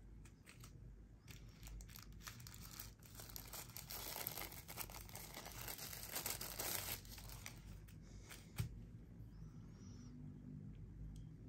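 Plastic packaging crinkling and tearing as it is handled, busiest about four to seven seconds in, followed by a single sharp knock.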